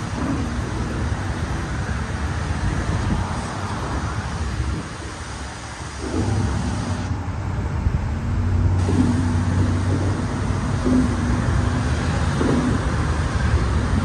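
Road traffic noise at a city intersection: cars' engines and tyres, steady and fairly loud, dipping briefly and then growing louder with a low engine hum about halfway through.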